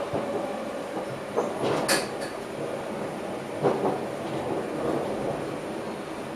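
Passenger train running, heard from inside the driver's cab: a steady running noise with wheels knocking over the track, a sharp click about two seconds in and another knock just before four seconds.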